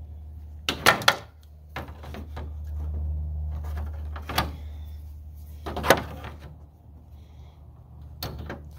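A few sharp plastic snaps and clicks as Christmas-tree push clips are cut and worked loose from the truck's front panel, over a low steady rumble.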